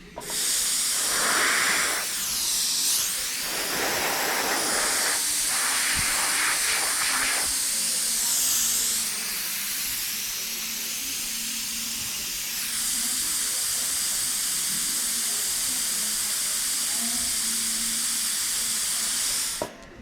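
Dental high-speed air-turbine handpiece running with a loud, steady hiss, its high whine dipping in pitch and recovering twice, with rougher spray noise in the first several seconds; it cuts off just before the end.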